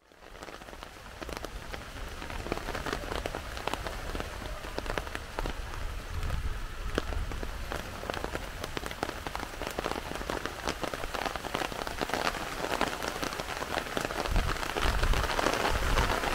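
Heavy rain falling steadily, with many separate drops striking close by. It fades in at the start and grows a little louder toward the end.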